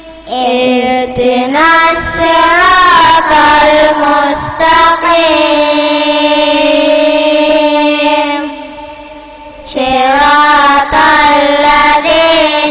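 Children's voices reciting the Quran in chorus in melodic tartil style, drawn-out notes gliding up and down, with one long held note. The recitation breaks off for about a second near the three-quarter mark and then resumes.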